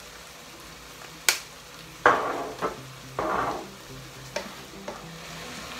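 Minced beef and onions sizzling steadily in a frying pan while a spatula stirs and scrapes through the meat. There is a sharp knock about a second in, then a few scraping strokes in the middle.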